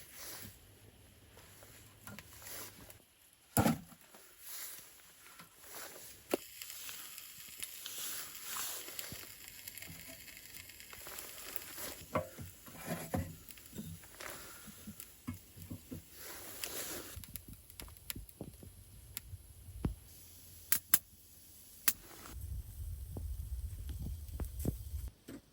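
Rustling and handling noises with scattered sharp clicks and knocks, the loudest about three and a half seconds in and a cluster near twenty seconds in, as gear and wood are handled around a small tent wood stove.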